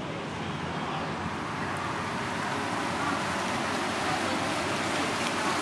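Steady outdoor background noise of road traffic, growing slightly louder about halfway through, with faint voices in the background.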